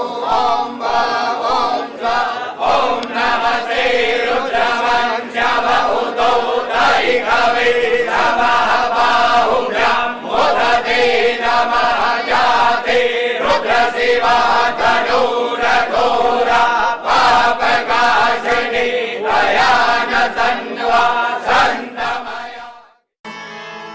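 A group of men chanting mantras together, with many sharp clicks running through the chant. It cuts off suddenly near the end and a different song begins.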